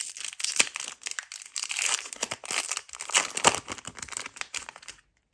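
A Pokémon trading-card booster pack's foil wrapper being torn open and crinkled by hand. The crackling stops abruptly about five seconds in.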